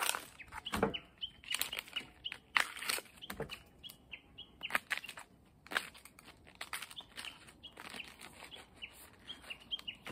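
Husk sheaths being torn and stripped off young bamboo shoots by hand: a run of irregular short rips and snaps. Small birds chirp faintly in the background.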